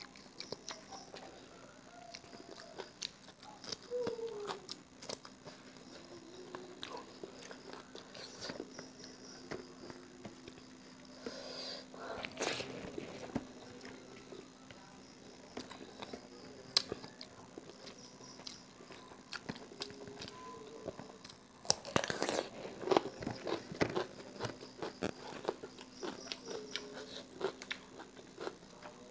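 A person eating by hand close to the microphone, chewing and crunching mouthfuls of raw leafy greens, with small wet mouth clicks and smacks throughout. The crunching gets louder for a moment about halfway through and again for a couple of seconds around two-thirds of the way in.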